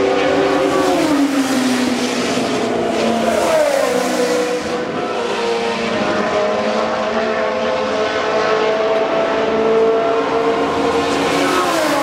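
Historic Formula 1 cars' racing engines at speed, several running at once. One engine note falls in pitch about a second in and another around three to four seconds in, notes hold steady through the middle, and another falls near the end.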